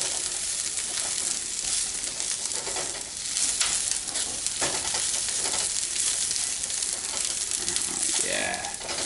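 Caramelized onions sizzling in a frying pan on its residual heat with the burner just switched off, while a utensil stirs them and scrapes the pan with a few sharp scrapes.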